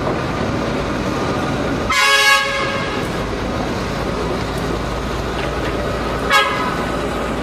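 KAI CC206 diesel-electric locomotive passing with its engine running, sounding its horn: one blast of about half a second about two seconds in, then a short toot about six seconds in.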